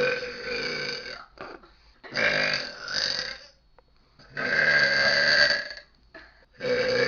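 Long, loud belches from young women, one after another: four long burps with a couple of short ones between, a new one starting near the end.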